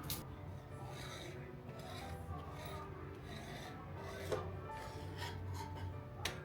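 Scraping and rubbing sounds with three sharp clicks, over soft background music.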